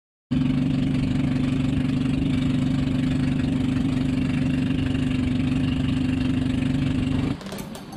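Outrigger boat's engine running at a steady pace, heard from on board. It stops suddenly near the end.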